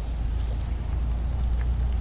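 Outdoor lakeside ambience: a steady low rumble with a few faint bird chirps over it.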